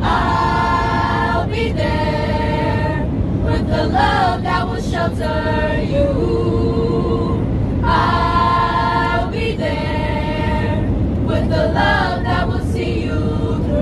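A choir singing a cappella, holding sustained chords in phrases with short breaks, over the steady low drone of an airliner cabin.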